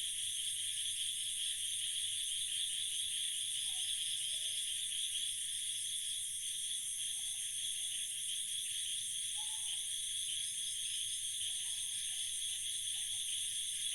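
Dense chorus of night insects, a steady high-pitched trilling, with a few faint lower calls now and then.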